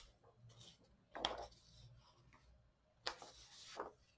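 Faint scratching of a pen writing on paper in short strokes, about a second in and again around three seconds in, over quiet room tone.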